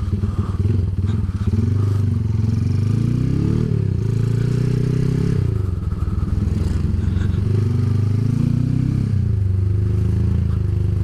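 Classic Honda CB motorcycle engine under way, heard from the rider's seat. The revs climb and drop back sharply twice.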